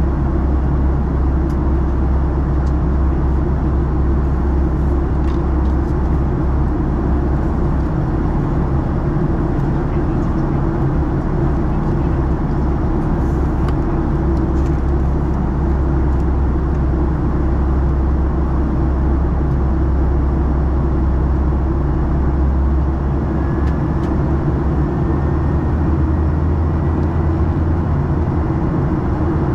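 Steady cabin noise inside a Boeing 737-800 with its engines running: a loud, even, deep rumble that holds without change.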